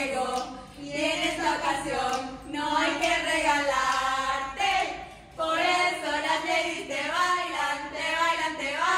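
A group of women singing a home-made birthday song together without accompaniment, breaking off briefly about five seconds in before carrying on.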